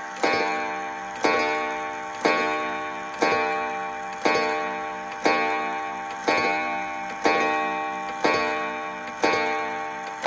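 Ansonia gingerbread kitchen clock striking the hour: the hammer hits its coiled wire gong about once a second, ten strokes here, each one ringing on and dying away into the next.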